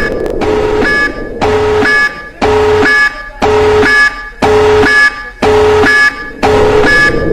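Electronic emergency alert alarm beeping in a steady rhythm, about one pulse a second, each pulse a blend of a low and a high steady tone.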